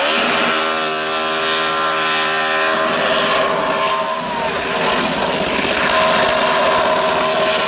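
NASCAR Cup car's V8 held at high revs during a victory burnout, its rear tyres spinning in smoke. The engine note stays high and fairly steady, with a slight rise about four seconds in.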